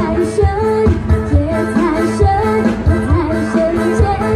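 A pop-style song with a singing voice over a steady beat.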